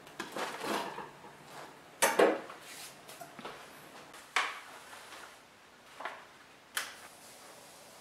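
Knife cutting through the crust of a baked artisan loaf, the crust cracking in a string of short bursts, the loudest about two seconds in.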